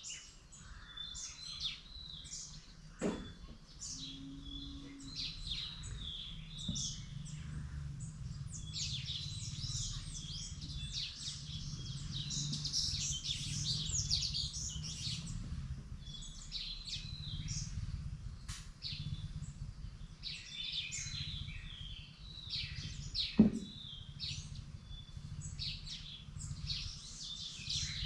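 Several songbirds chirping and calling in quick, overlapping short notes, busiest around the middle, over a steady low background rumble. A brief knock sounds near the start, and a louder one near the end.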